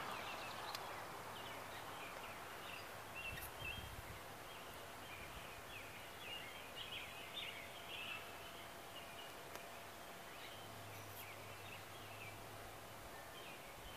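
Quiet outdoor background with faint, scattered bird chirps.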